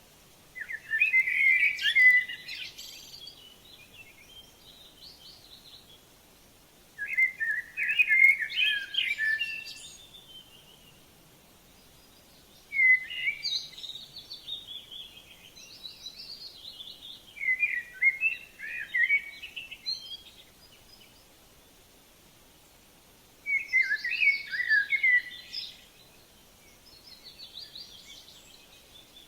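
A songbird singing short, quick warbled phrases of two to three seconds each, repeated about every five seconds with quiet gaps between.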